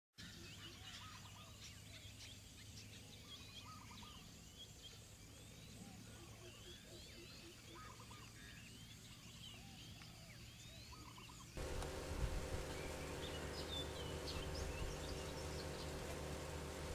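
Faint outdoor ambience of many birds chirping, mixed with rapid pulsed calls. About eleven and a half seconds in it cuts abruptly to a louder background of steady hum and low rumble, with a few bird calls over it.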